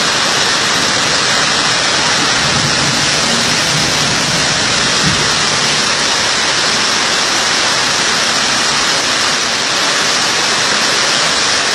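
Floodwater rushing fast over a road in a flash flood: a loud, steady noise of torrential water.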